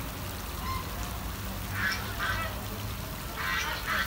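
Domestic ducks and geese calling in two short clusters of calls, about two seconds in and again near the end, over the steady patter of a water spray falling on the pond.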